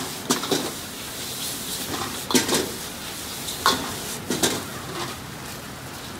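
Metal ladle and spatula scraping and clanging against a wok while noodles are stir-fried over a gas flame, over steady sizzling. There are several sharp clangs, the loudest about two and a half and three and a half seconds in.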